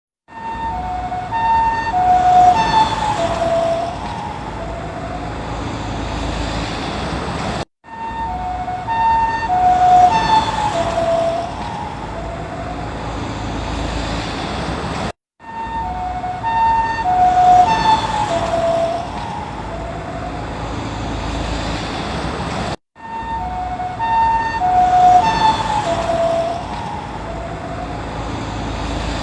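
Japanese ambulance's two-tone "pee-po" siren driving past, its alternating high and low notes dropping in pitch as it passes (the Doppler effect) and fading under road noise. The same pass repeats about every seven and a half seconds, with a brief break between.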